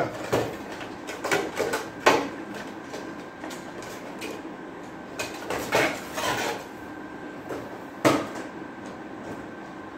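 Handling noise of a Shimano Dialuna spinning rod being pulled from its plastic wrapping and sleeve: rustling with scattered sharp knocks and clicks, the loudest about two seconds in and about eight seconds in.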